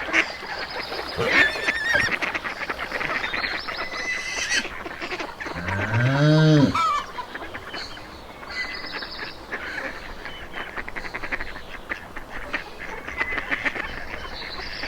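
A flock of geese and ducks honking and gabbling continuously, with one louder, lower drawn-out call that rises and falls about six seconds in.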